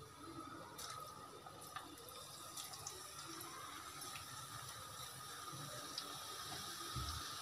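Tapioca slices sizzling as they are dropped one by one into hot oil kept on a high flame. The bubbling hiss slowly builds as the pan fills, with a few small plops in the first few seconds.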